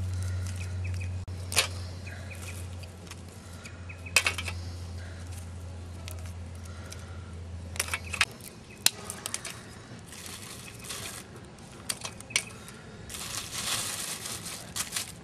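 Dry sticks and twigs being dropped and packed into a tin-can camp stove: scattered sharp clicks of wood knocking against the tin, with short bursts of dry rustling. A low steady hum stops about eight seconds in.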